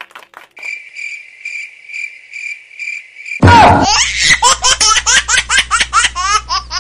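Cricket chirping, about two chirps a second, then about halfway through a loud laugh takes over: quick, rhythmic ha-ha-ha over a low steady hum.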